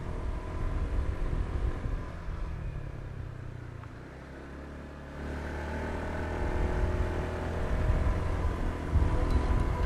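Motorbike engine running under the rider, with a low road rumble; the engine eases off a few seconds in, then picks up again from about halfway.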